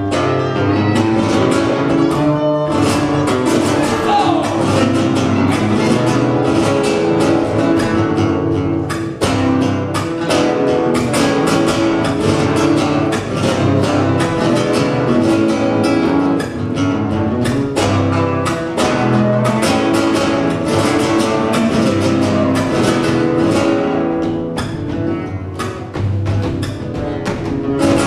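Guitar playing a southern (sureño) malambo, with rapid stamping zapateo footwork on the stage floor struck in quick runs over the music.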